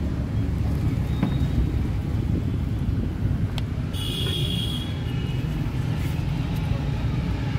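Steady low rumble of road traffic, with a brief high-pitched tone about four seconds in.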